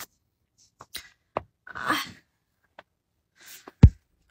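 A woman's mouth and breath sounds: a few small clicks and smacks, a sharp breathy burst of breath about two seconds in, and a short loud thump shortly before the end.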